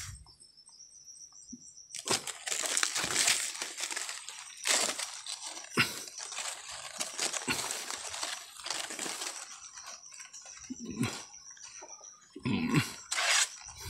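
Leaves and branches of a fruit tree rustling and crackling as they are pulled and handled, in uneven bursts with small snaps, busiest from about two to ten seconds in and again briefly near the end.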